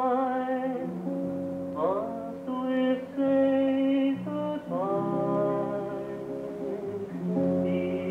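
Small rock band playing: a male singer holds long notes into the microphone over electric guitars.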